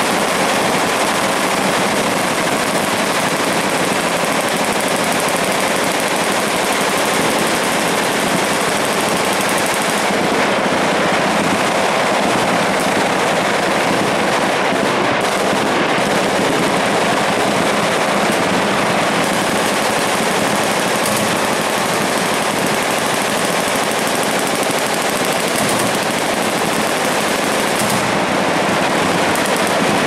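Automatic fire from many machine guns on a firing line at once, the bursts overlapping into a loud, steady, unbroken din with no single shot standing out.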